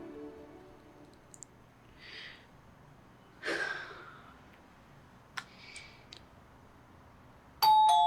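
A sigh and a few soft breaths with a small click in a quiet room, then near the end an electronic doorbell chimes two notes, high then low, the loudest sound here, ringing on as it fades.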